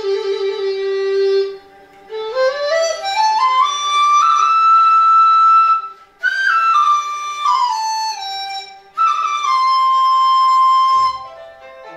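Chinese bamboo dizi flute playing a slow melody: a held low note, then a rising run of notes up to a long high note, a falling phrase, and another long held note, with short pauses for breath between phrases.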